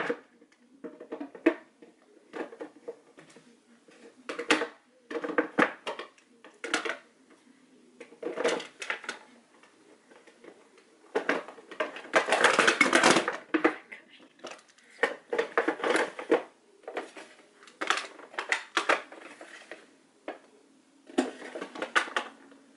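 Makeup products and their plastic cases clattering and clicking as they are rummaged through, picked up and set down, in short irregular bursts, with one longer, louder stretch of rattling about halfway through.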